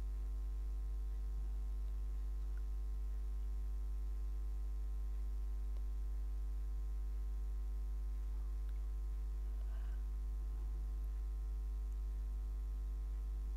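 Steady electrical mains hum: a constant low drone with a row of fainter higher overtones above it, unchanging throughout.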